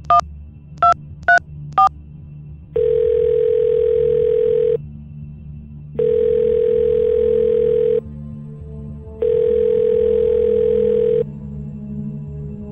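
Telephone keypad tones as four digits are dialled, then the ringback tone of an outgoing call ringing three times, each ring about two seconds long, over a low background music bed.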